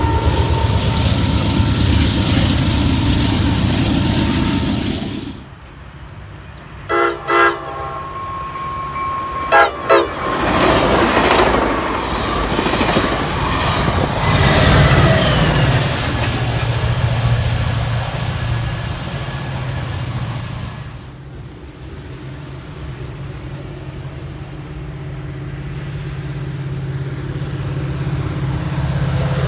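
A train passing with its cars rumbling and clacking over the rails, then a locomotive horn giving four short toots in two pairs. The train noise picks up again and gives way to a low, steady locomotive engine drone that grows louder near the end.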